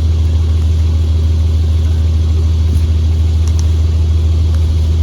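A vehicle engine running steadily, a deep, unbroken rumble.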